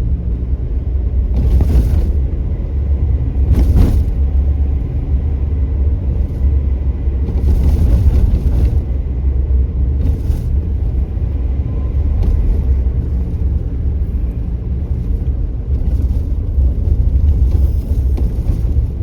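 Steady low rumble of a vehicle in motion, with brief hissing bursts every couple of seconds.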